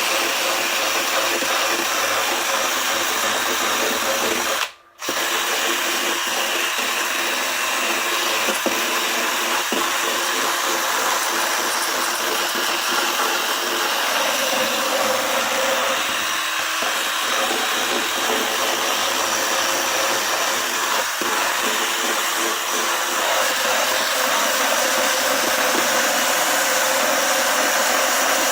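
Handheld power tool running steadily as it cuts and flattens cured expanding glue foam, with a brief break about five seconds in.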